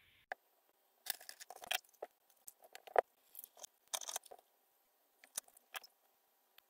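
Small parts and tools being handled on a workbench: irregular light clicks, taps and short scratchy rustles, with one sharper click about three seconds in.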